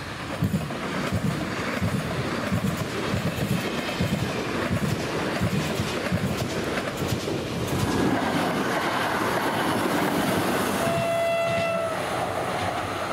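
PKP Intercity electric passenger train passing close by, its wheels clattering over the rail joints. Near the end a train horn sounds one steady note for about a second.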